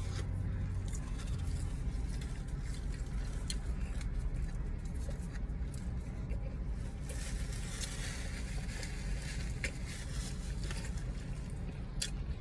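Steady low hum of a parked car's idling engine, heard inside the cabin, with faint rustles and small clicks as food is handled and eaten.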